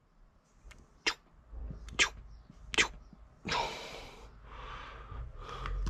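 Felt-tip marker on a whiteboard: a few short sharp clicks and taps, then the tip rubbing across the board in longer strokes from about three and a half seconds in.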